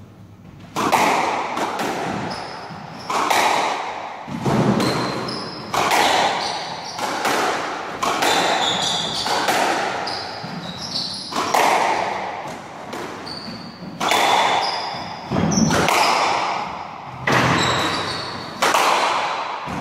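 Squash rally: the ball is struck and hits the walls in a steady exchange, a sharp echoing crack about every second and a half starting about a second in. Short high squeaks of shoes on the wooden court floor come between the shots.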